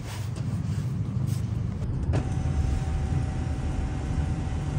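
Street sound with a few light knocks and rustles at first, then about two seconds in an abrupt change to road noise inside a moving SUV's cabin: a steady low rumble with a faint steady whine.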